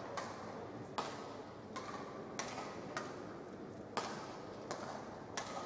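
Badminton rally: a shuttlecock struck back and forth by rackets, about eight sharp hits roughly one every 0.7 s, echoing in a large hall.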